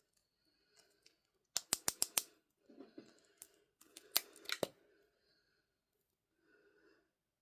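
Opening of surprise-egg toy packaging: two quick runs of sharp clicks, the first about a second and a half in and the second about four seconds in, with soft rustling of packaging between.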